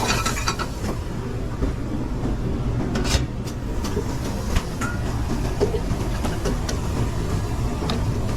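Raw commercial-kitchen line noise: a steady low rumble of ventilation and equipment, with a few sharp clanks of pans and utensils, the loudest about three seconds in.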